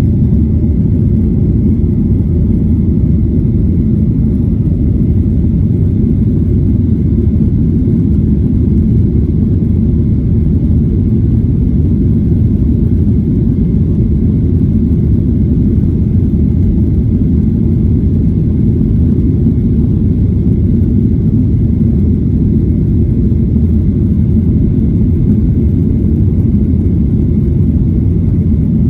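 Steady low rumble of an airliner's jet engines and airflow heard inside the passenger cabin, even and unchanging, with a faint high steady tone above it.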